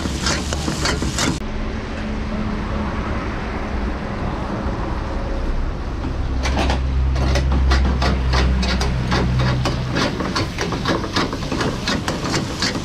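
Metal spatula and tongs scraping and clanking against a wok as meat and tomatoes fry, in quick runs of strokes at the start and again from about halfway on. In between comes a steady rumble with a low hum and no clanking.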